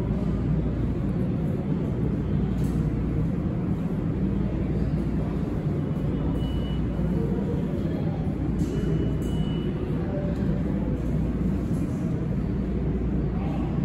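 New York City subway train slowly approaching the platform through the tunnel: a steady low rumble, with a couple of brief, faint high squeals about halfway through.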